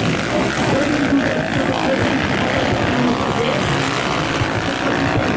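Motocross motorcycle engines running on the race track, their pitch rising and falling as the riders work the throttle.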